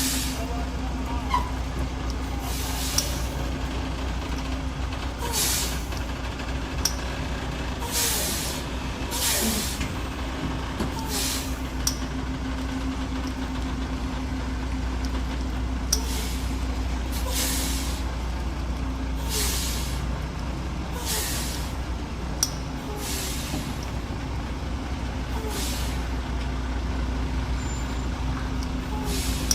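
Heavy truck's engine running with a steady low hum, broken about a dozen times by short air hisses every one to three seconds: its air brakes being applied and released.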